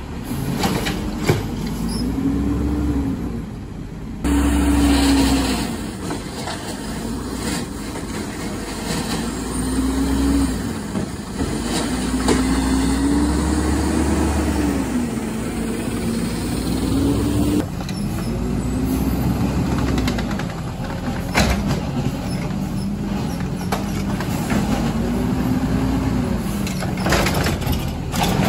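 Garbage truck's diesel engine revving up and dropping back again and again, about every four to five seconds, while the truck works on a load of trash, with occasional knocks and clatter.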